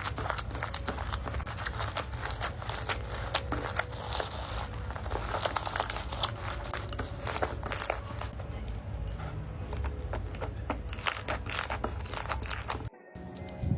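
Slime being pressed and stretched by hand, making dense, irregular crackling and popping that cuts off suddenly near the end.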